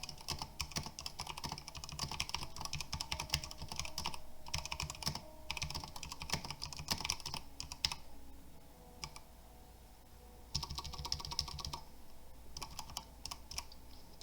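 Typing on a Redragon K556 mechanical keyboard with tactile brown switches and shine-through ABS keycaps: rapid key clacks in bursts, thinning to a few scattered keystrokes for about two seconds past the middle before picking up again.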